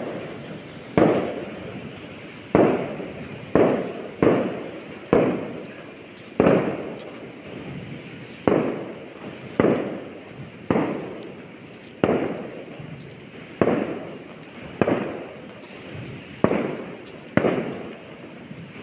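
Fireworks going off out of sight: a run of about fifteen sharp bangs, roughly one a second, each followed by a rolling echo that fades away.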